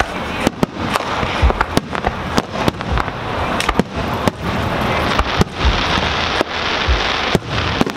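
Aerial fireworks shells bursting in quick succession: a dozen or more sharp cracks, with a deep boom about every second and a half, over a constant hiss.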